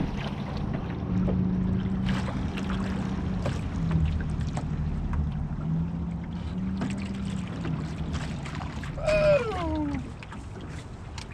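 Electric motor on a square-back canoe humming steadily as the canoe moves, with water splashing and lapping at the hull and some wind. A brief falling-pitched sound comes a little after nine seconds, and the sound drops lower just after.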